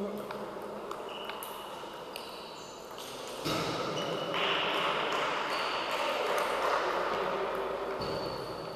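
Table tennis ball clicking off bats and table during a rally, sharp single knocks. From about three and a half seconds in, a louder wash of noise rises in the hall and covers the knocks, easing near the end.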